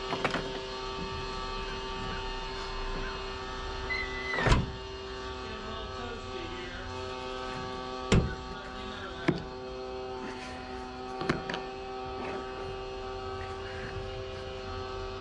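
A steady hum of several even tones runs throughout, broken by a few sharp knocks and clicks from hand work on a pickup tailgate, the loudest about four and a half seconds in and others near eight, nine and eleven seconds.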